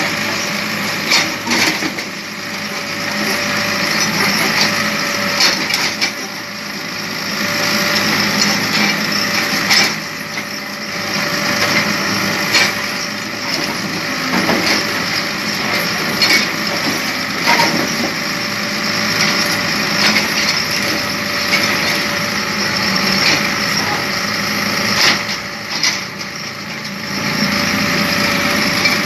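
Wheeled excavator's diesel engine running steadily while it digs, with frequent short knocks and scrapes of the bucket biting into mud and rubble.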